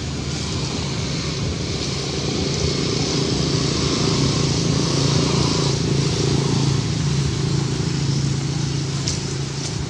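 A motor engine running steadily at a constant pitch, growing louder to a peak about halfway through and then easing off slightly.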